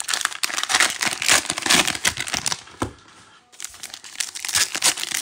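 Plastic cello pack wrapper of football trading cards being torn open and crinkled by hand: a dense run of crackling rustles that thins briefly about three seconds in, then picks up again.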